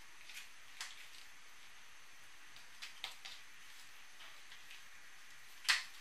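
Small clicks and light rustles of a charger cable and plastic heat-shrink tubing being handled, a few scattered ticks with a sharper click near the end, over a faint steady hiss.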